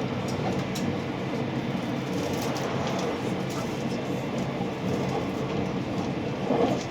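Steady running noise inside the passenger cabin of a JR West 683 series limited express electric train. Faint ticks come through the noise, and there is a brief louder swell near the end.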